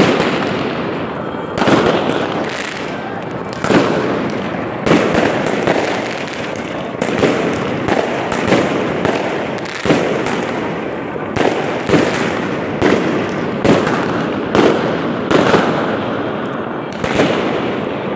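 Aerial fireworks bursting overhead: about one sharp bang a second, each fading out with an echo, over a continuous din of further fireworks.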